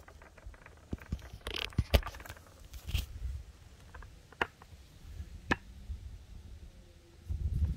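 Scattered clicks and knocks from a floor pump's hose, head and fittings being handled, the loudest about two seconds in.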